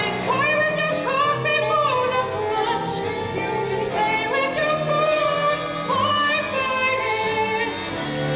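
Singing over instrumental accompaniment in a stage-musical number, with held, wavering sung notes over steady low notes.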